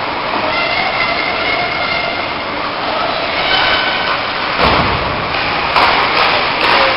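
Ice hockey game sound in a reverberant rink: a steady wash of skates on the ice and arena noise, broken by sharper knocks about four and a half and six seconds in.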